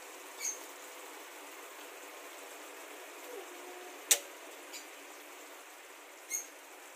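Faint steady background with two brief high chirps, about half a second in and again near the end, and one sharp click a little past the middle.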